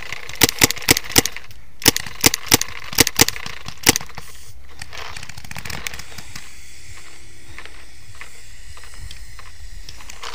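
Paintball markers firing: about ten sharp pops in the first four seconds, irregularly spaced and some in quick pairs, then the shooting stops.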